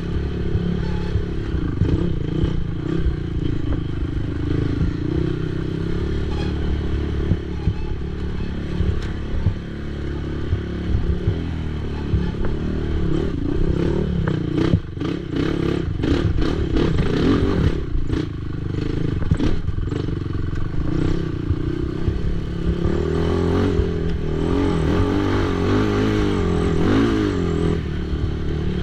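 Racing ATV engine running hard, its pitch rising and falling as the throttle changes. Clattering knocks, most of them near the middle, come from the quad working over rough cross-country terrain.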